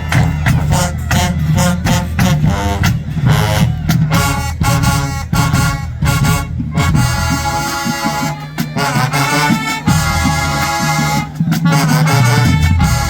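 HBCU marching band playing loud: hard, rapid drum strikes over a heavy low end for the first half, then the brass section comes in with sustained chords about halfway through.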